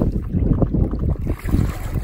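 Wind buffeting the microphone in irregular low rumbling gusts, over water sloshing against an inflatable dinghy's hull as it is pushed off from the shallows.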